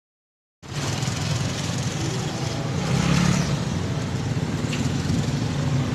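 Motorcycle engine running steadily while riding, heard from the bike itself with wind noise on the microphone; it starts suddenly just under a second in, after a brief silence.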